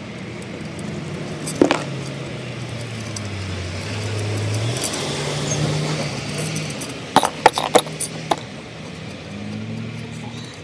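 Sharp metallic clinks as hands and tools work on the compressor's cast-iron head to take it off: one clink about two seconds in and a quick cluster of clinks around seven to eight seconds. A low droning hum that shifts slowly in pitch runs under them.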